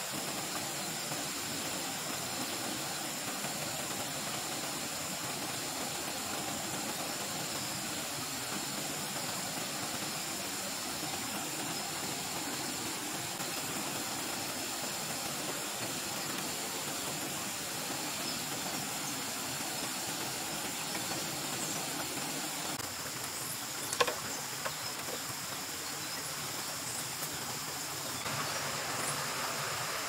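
Steady forest ambience: a rushing stream with a high, steady insect drone over it. About 24 seconds in, a single sharp knock stands out above it.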